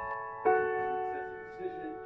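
Background piano music: a chord struck about half a second in, ringing and slowly fading.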